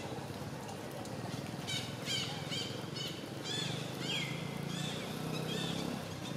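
A series of short, high-pitched animal calls, each falling in pitch, about two or three a second, starting nearly two seconds in and trailing off after four seconds, with a longer downward glide among them.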